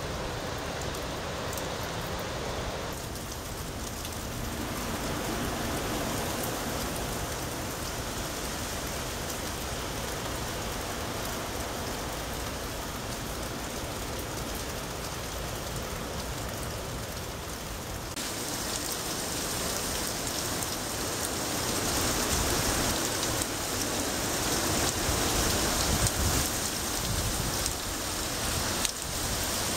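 Steady heavy rain falling from Hurricane Michael's rain bands, pouring onto lawns and a flooded street. It grows heavier and louder about two-thirds of the way through.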